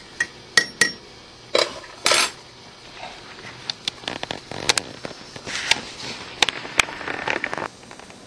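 Glass jars being handled: scattered light clinks and knocks of glass, with a stretch of soft rustling about two-thirds of the way in.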